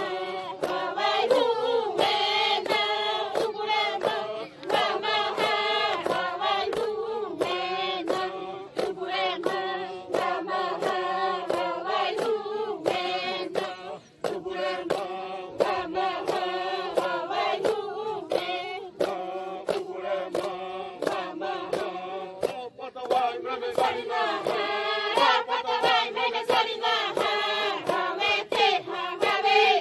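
Xavante women singing a chant together in unison, with a sharp regular beat of about one and a half strokes a second running under the song.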